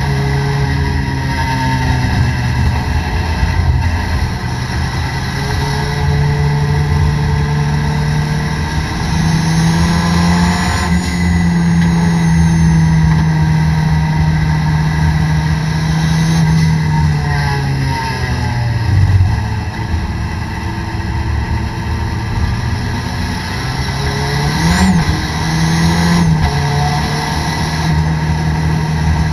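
Toyota Corolla DX race car's engine heard from inside the car, running at moderate, fairly steady revs. The revs rise about a third of the way in, hold, then drop, with a short blip of throttle later on.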